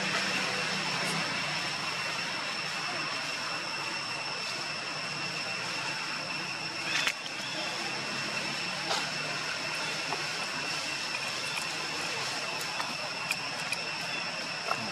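Steady outdoor background hiss with a constant high-pitched whine, broken by a sharp click about seven seconds in and a few fainter ticks.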